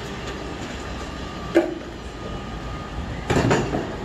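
Steady rumbling background noise, with a sharp knock about one and a half seconds in and a louder short cluster of knocks near the end.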